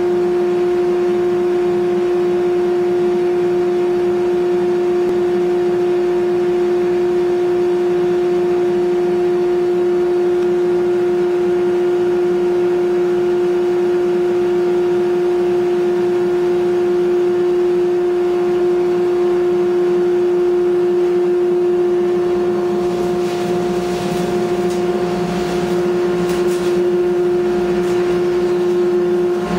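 Woodworking dust collector with a 2 hp single-phase motor running steadily: a constant high hum over a rush of air. In the last several seconds a few faint clicks come through and the sound dips slightly.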